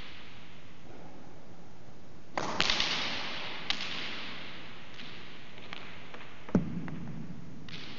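Hard racquets ball striking the walls and floor of the court with sharp cracks that echo long in the big hall: a quick run of four knocks, a single click about a second later, and a louder, deeper knock near the end.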